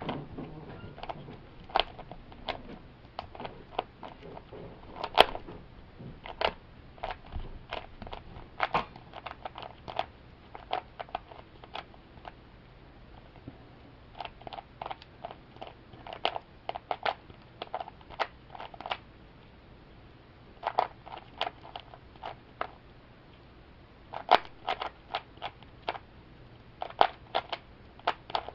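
Plastic 3x3 Rubik's Cube being turned by hand: irregular runs of quick clicks as the layers twist, broken by short pauses of a second or two.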